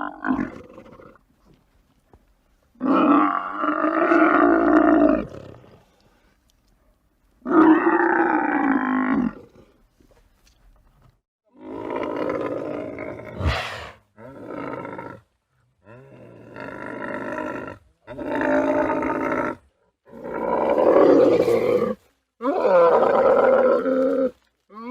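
Camel roaring in a run of about eight calls, each one to three seconds long, with short pauses between them; the calls start and stop abruptly, and a sharp click sounds about halfway through.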